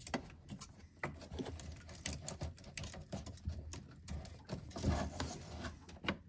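Quiet, scattered plastic clicks and taps of hands pressing down and sliding wiring clips out of a truck's battery terminal block.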